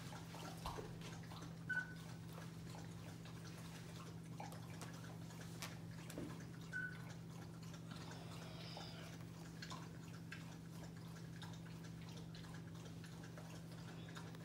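Young puppies moving about on pee pads in a plastic puppy-pad tray: faint scattered clicks and rustles, with two brief high squeaks, over a steady low hum.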